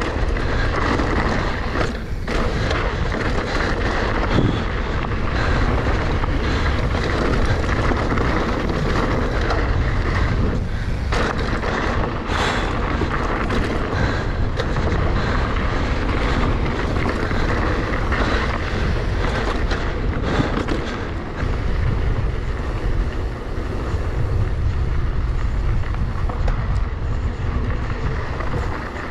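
Steady wind buffeting the microphone, with a heavy low rumble, during a fast downhill descent.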